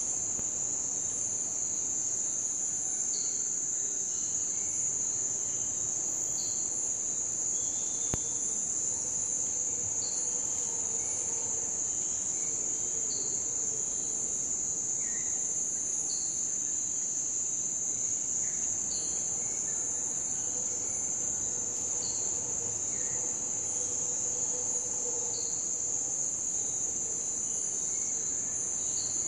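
Night insect chorus: a steady high-pitched trill, with short chirps repeating every second or so over it.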